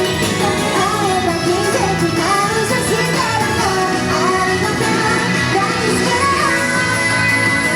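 Japanese idol group singing a pop song live over loud backing music, the sung melody rising and falling throughout.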